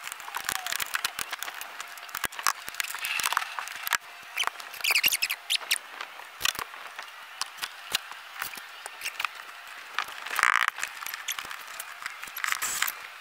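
Irregular short clicks, scrapes and rubs of hands working at a car's interior trim and headliner edge.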